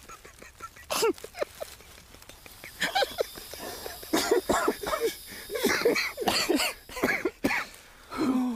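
A voice making short coughing and throat-clearing sounds in several separate bursts, busiest from about four to seven and a half seconds in.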